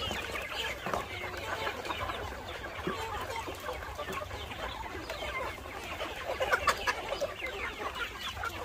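A large flock of chickens clucking and chirping without a break while they crowd in to eat scattered feed, the clucking growing louder for a moment about six and a half seconds in.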